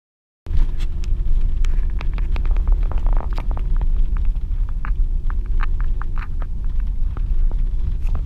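Car crossing a bridge, heard from inside the cabin: a steady, deep rumble of tyres and wind, with scattered clicks and ticks. It cuts in abruptly about half a second in.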